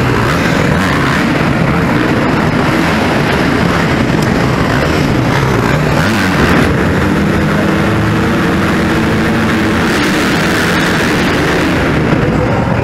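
Several motocross bikes racing round an indoor supercross track inside an arena hall, their engines revving up and down continuously as they take the jumps.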